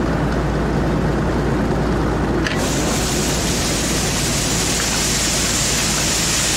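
Six-cylinder Perkins P6 diesel of an Allis-Chalmers Gleaner A combine running steadily. About two and a half seconds in, a click as the unloading auger takes up, then a steady hiss of grain pouring out of the auger joins the engine.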